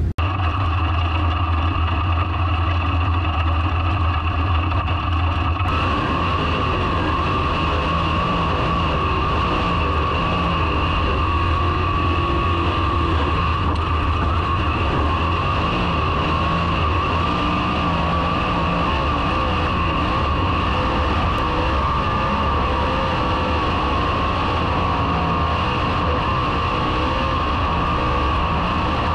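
A motor vehicle running at a steady pace, its engine note holding constant without revving up or down.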